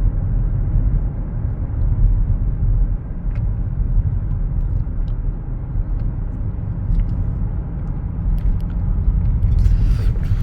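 Steady low rumble of a car being driven, engine and road noise heard from inside the cabin, with a few faint ticks.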